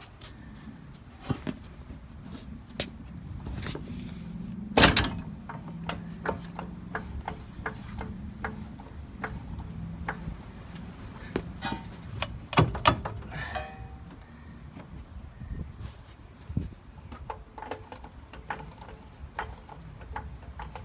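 Scattered metal clanks and taps as rear suspension parts and tools are worked into line. A loud knock comes about five seconds in, and a few strong ones around thirteen seconds.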